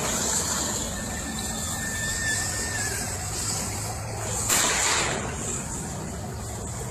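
Armoured vehicle running across a dirt field: a steady low rumble under a noisy rush, with a sudden loud burst of noise about four and a half seconds in that fades within about half a second.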